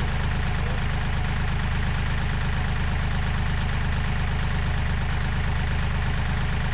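Bobcat compact tractor's diesel engine idling steadily.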